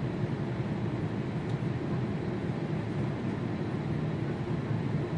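Steady low rumble and rush of airliner cabin noise in flight.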